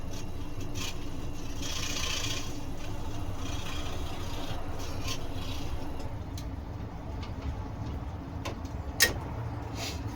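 Electric scroll saw running with its blade cutting through wood, a steady mechanical hum with a rasping edge. About six seconds in it gets quieter, and a few sharp clicks follow, the loudest near the end.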